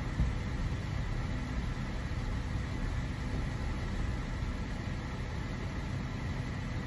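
Car engine idling steadily, left running to warm up after a cold start at −22 °C.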